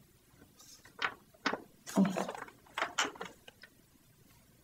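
A paper sign and its tape being pulled off a wooden apartment door by gloved hands: a few short rustles, scrapes and light knocks, the loudest about two seconds in.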